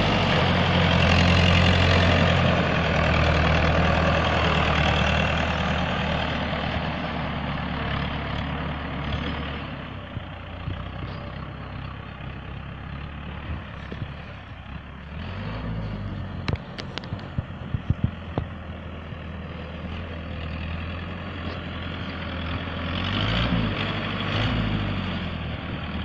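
TAFE farm tractor's diesel engine running under load while it pushes through brush. It starts close and grows fainter as the tractor moves off, with its pitch rising and falling twice. A few sharp cracks come partway through.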